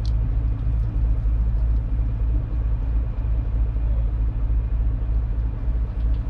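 Fishing boat's engine running steadily, a low rumble.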